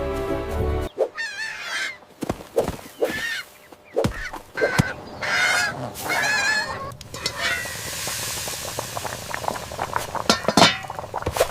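A chicken squawking repeatedly in wavering, honk-like cries, mixed with sharp knocks and thuds. Background music cuts off about a second in, and a stretch of hissing noise fills the second half.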